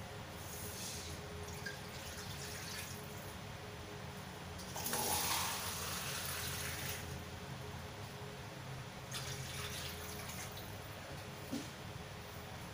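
Water running and splashing into a metal wok from a tap, loudest for about two seconds some five seconds in, with weaker trickles before and after.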